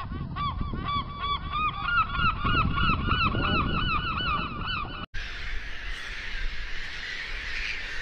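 A flock of birds calling: a quick run of repeated, arching calls, several a second and overlapping, over a low rumble. After a sudden cut about five seconds in, a denser, even chatter of many birds takes over.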